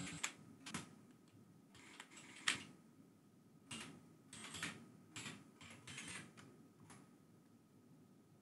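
Computer keyboard keys being typed: faint, irregular clicks in short runs with pauses between them.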